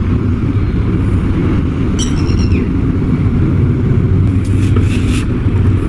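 A steady low rumble of a motor running nearby, with light scraping and clinking of lead-acid battery plates being slid together about two seconds in and again near the end.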